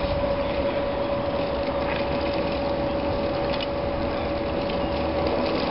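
Steady mechanical hum with a constant whine, from the chairlift's cable running over the tower sheaves.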